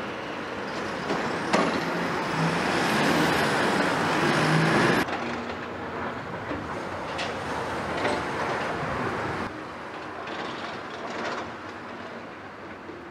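Caterpillar 320E hydraulic excavator working: its diesel engine runs under scraping, clanking and knocks as the bucket handles rubble and soil. It is loudest in the first few seconds, with a sharp knock and some high squealing, then drops abruptly about five seconds in to a steadier, quieter run with scattered clicks.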